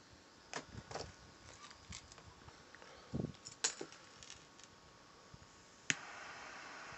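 Light scattered clicks and rattles from a thermocouple probe's plug and braided wire being handled at a digital multimeter, with a duller knock about three seconds in. A sharp click comes near the end, after which a steady hiss sets in.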